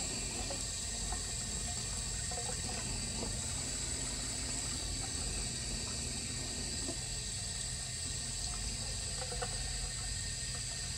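Sink tap running steadily, the water stream splashing into the basin and into a brass alto saxophone neck held beneath it to rinse out its bore.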